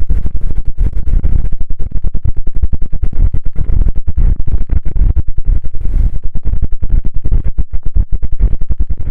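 Synthesized space-sound effect: a loud, deep electronic rumble chopped into a rapid stutter of about ten pulses a second.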